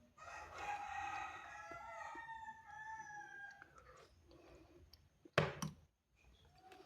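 Rooster crowing once, a long drawn-out call of nearly four seconds. About five and a half seconds in comes a brief loud knock.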